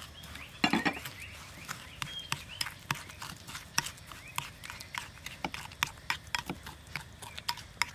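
Metal spoon clicking and scraping against a glazed ceramic bowl in quick, irregular strokes while stirring a thick mixture.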